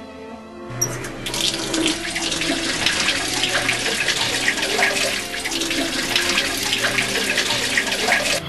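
Tap water running into a sink, with hands splashing water onto a face; it starts suddenly about a second in.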